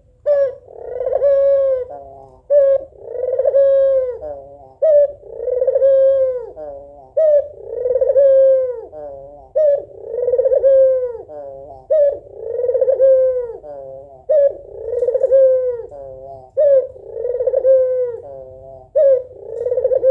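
A female white Barbary dove (puter, the ringneck or collared domestic dove) calls over and over, about nine times. Each call is a short clipped note followed by a long rolling coo, repeated roughly every two and a half seconds. This is the female's call for a male.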